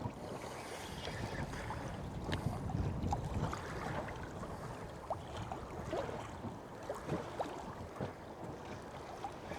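Water slapping gently against a small boat's hull, with wind buffeting the microphone and scattered faint clicks and creaks from the boat and tackle.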